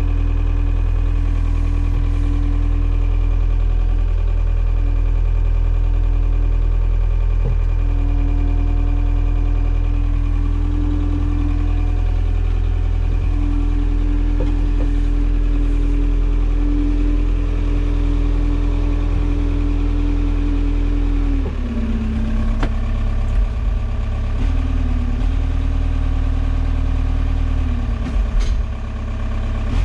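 Forklift running while it carries a loaded pallet, heard from inside its cab: a steady mechanical hum with a mid-pitched whine. About two-thirds of the way through the whine drops in pitch and the low hum eases, and there are a couple of short knocks near the end.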